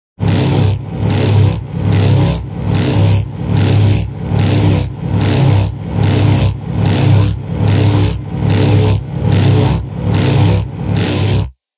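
Cinematic sound effect: a loud, rhythmic pulsing at about two beats a second, each beat a noisy rush over a steady low hum, starting and stopping abruptly.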